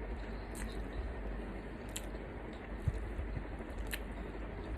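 A person chewing food, with a few light clicks.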